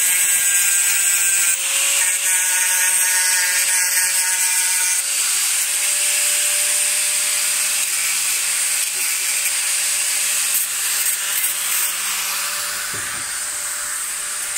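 Corded angle grinder with an abrasive disc running steadily, grinding rust off a small steel anvil: a constant motor whine over a dense, hissing grinding noise. It grows somewhat fainter near the end.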